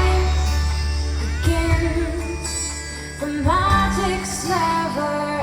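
Background music with singing: the show's song over steady low chords, played through the park's speakers.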